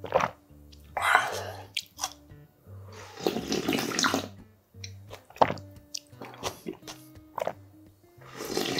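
Slurping soup broth straight from a bowl, in several long noisy sucking pulls with short clicks of swallowing between them. Soft background music plays underneath.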